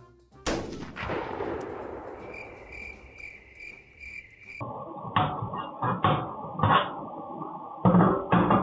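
A sudden loud crash with a rush of noise that slowly dies away, and a rapid electronic beeping at about two and a half beeps a second. Then comes a series of loud, irregular clattering knocks.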